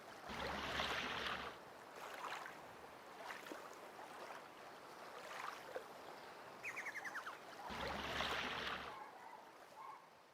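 Water rushing and splashing in swells, the two strongest near the start and about eight seconds in, with a brief rapid run of high descending notes about seven seconds in.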